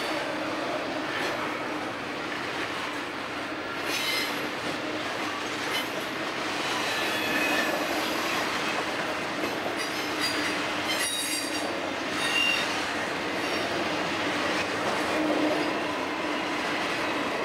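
Double-stack container cars of a long intermodal freight train rolling past: a steady rumble of wheels on rail, with high-pitched wheel squeals coming and going several times as the cars take the diverging route at the junction.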